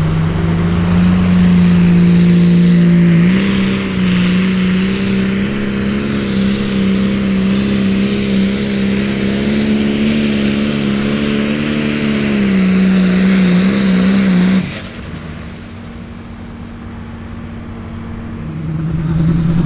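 John Deere hot farm pulling tractor's diesel engine at full throttle dragging a weight-transfer sled, a loud steady drone whose pitch steps up about three seconds in. About fifteen seconds in it drops off suddenly to a much quieter, lower running sound as the pull ends, then rises again near the end.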